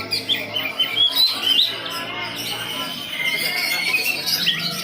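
Several songbirds singing at once: a dense, continuous stream of quick chirps, trills and short whistling glides, overlapping one another.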